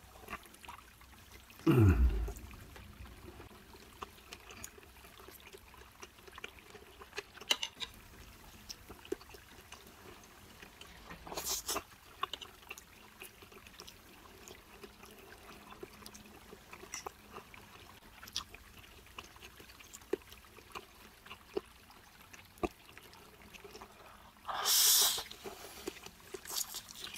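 Close-miked chewing of a large beef tendon meatball, with many small wet mouth clicks. There is a brief low falling sound about two seconds in, and near the end a loud slurp as a forkful of fried instant noodles is sucked in.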